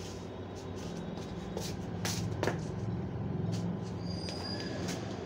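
A steady low mechanical hum, a little louder in the middle, with a few light clicks and a brief faint high tone near the end.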